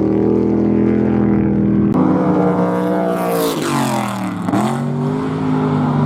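Off-road race vehicle engines running at speed; a little past halfway one passes close by, its engine pitch dropping as it goes, and then an engine note climbs sharply again.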